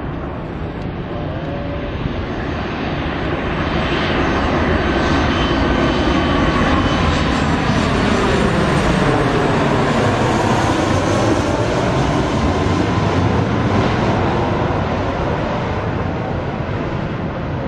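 Boeing 737 twin-turbofan airliner flying low overhead on final approach with its gear down. The engine roar swells to a peak about halfway through, sweeps in pitch as the plane passes, and then fades as it heads away, with a thin whine from the fans.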